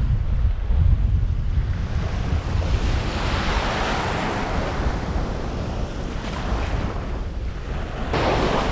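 Ocean surf breaking and washing up the sand, one wash swelling about halfway through, with wind buffeting the microphone as a low rumble.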